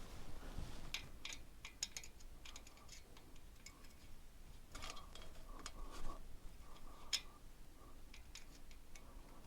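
Faint, irregular small metallic clicks and taps of hand tools on the engine's valve gear while the exhaust valve clearance is being set.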